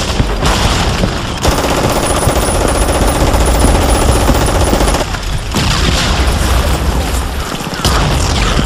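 Mountain bike running down a rough, muddy downhill trail, with wind buffeting the camera's microphone. About a second and a half in, a fast, even rattling buzz from the bike starts and runs for about three and a half seconds before dropping away.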